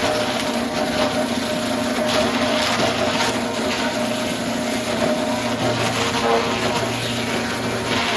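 Sawmill machinery running: a steady, loud mechanical noise with a low hum under it.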